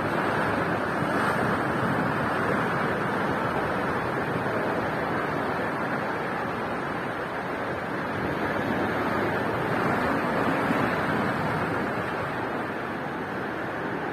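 Sea surf breaking and washing on the shore, a steady rushing that swells and eases a couple of times.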